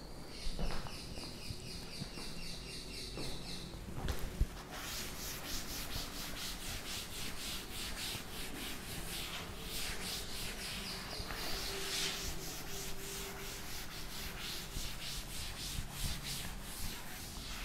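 A blackboard eraser rubbing across a chalkboard in quick back-and-forth strokes, wiping off the chalk writing. The rubbing starts about five seconds in, after a knock.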